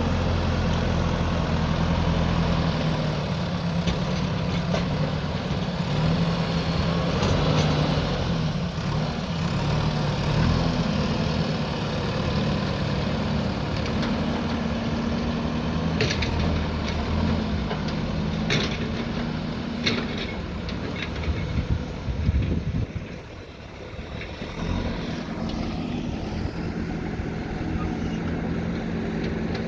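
JCB backhoe loader's diesel engine running steadily while working, its pitch shifting up and down. A few sharp knocks come about two-thirds of the way through, and the engine sound drops away briefly about three-quarters through.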